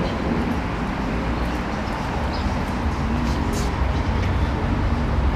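Outdoor street ambience: a steady low rumble of traffic and city noise, with a few faint short ticks.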